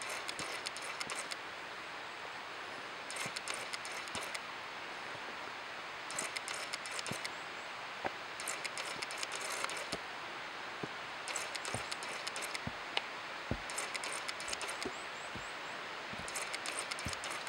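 Steady rushing roar of Daisen Falls, a mountain waterfall. Roughly every three seconds a burst of fine high-pitched crackling clicks lasting about a second sits over it, with scattered short low thumps.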